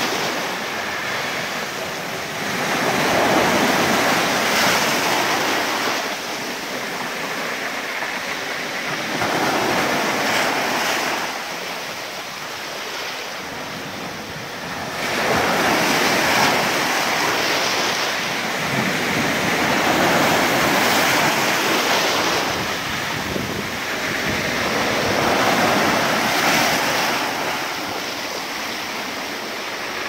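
Sea surf breaking and foaming against the base of a rock cliff, a steady rushing wash that swells and ebbs with each wave every few seconds.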